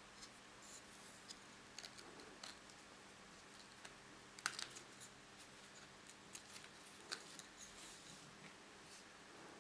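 Faint, scattered clicks and rustles of twine being pulled and wound around a bundle of thin wooden sticks, with the sticks knocking lightly against each other; the sharpest click comes about halfway through.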